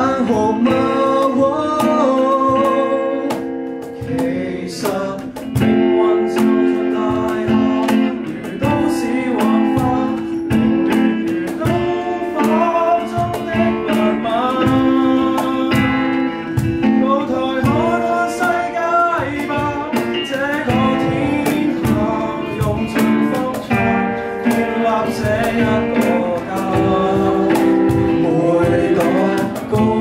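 Live acoustic band music: male voices singing over an acoustic guitar and the steady beat of a cajon.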